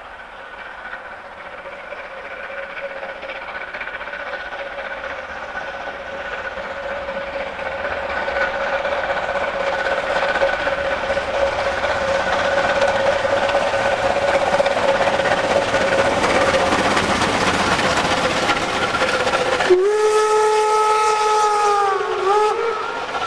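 Steam locomotive 52 8141-5, a DR class 52.80 2-10-0, approaching with its train, the exhaust and running noise growing steadily louder as it nears. About twenty seconds in, the steam whistle gives one loud blast of nearly three seconds, sagging in pitch as it closes, then a short second toot.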